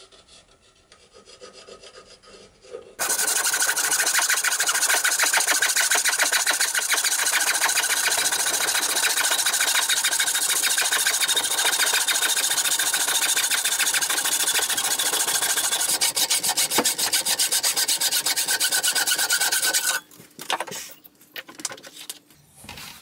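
Turning saw cutting a curve in a cherry chair-leg blank: fast, steady sawing strokes that start abruptly about three seconds in and stop abruptly about three seconds before the end. Faint scratching and handling sounds come before and after.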